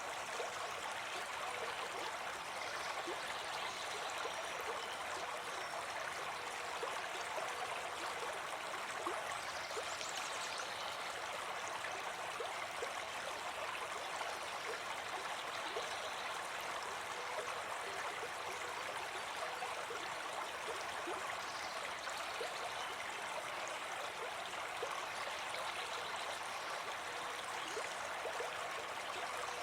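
Small brook babbling steadily over stones, an even rush of running water with no pauses.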